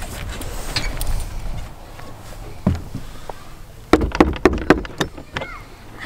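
Knocking on a wooden playhouse door: a quick run of about six knocks about four seconds in.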